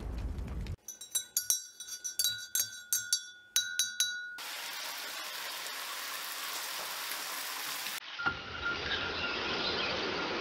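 A cartoon explosion's rumble tails off in the first second. A quick run of sharp, ringing clinks follows for about three and a half seconds. Then comes the steady sizzle of meat frying in a pan.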